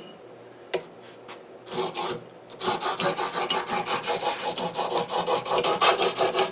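Coarse hone of a Gatco guided sharpening system scraped in quick, even back-and-forth strokes along a steel machete edge, roughing in a 22-degree bevel. The strokes start about two and a half seconds in, after a light click or two.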